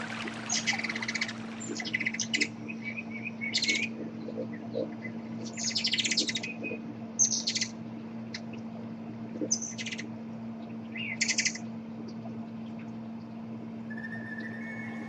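Birdsong: a songbird singing short high chirping phrases, about seven of them a second or two apart, over a faint steady low hum. A held musical note comes in near the end.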